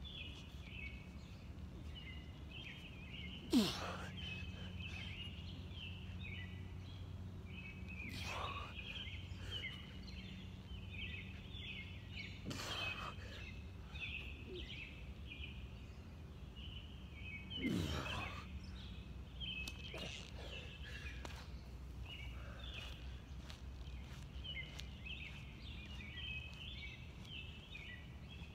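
A steady chorus of rapid, high chirping from night insects. Over it, a man doing push-ups breathes out hard: two loud, sharp breaths that fall in pitch, about three and a half and eighteen seconds in, the first the loudest, with fainter ones between.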